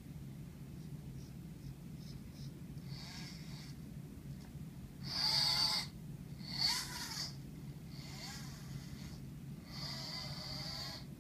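Electric drive motors and gripper servo of a small four-wheel robot rover whining in five bursts of about a second each as it is driven from a game controller, the pitch rising and falling within some bursts; the two bursts a little past the middle are the loudest.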